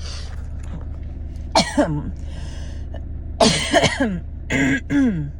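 An asthmatic woman's dry cough, several coughs in short fits, with a hissing, wheezing breath drawn in between them, during an asthma flare-up without chest infection. A steady low hum runs underneath.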